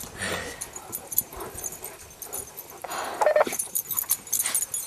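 Dog playing in sand, with faint scattered rustling and one short falling cry a little past three seconds in.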